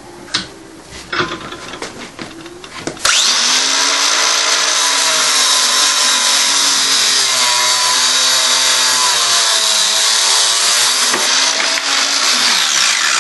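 A few knocks as a steel rod is set in a bench vise. About three seconds in, an angle grinder starts abruptly and its cutting disc cuts through the rod, the motor's pitch dipping and wavering under load. The disc is fitted with a homemade SDS grip and runs centred, without vibration.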